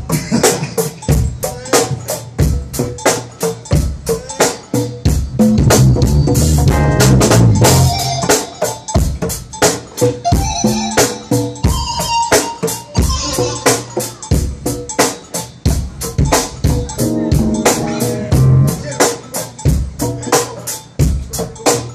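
Live go-go band music: a child playing congas over a drum kit keeping a fast, steady beat, with held pitched notes joining in twice.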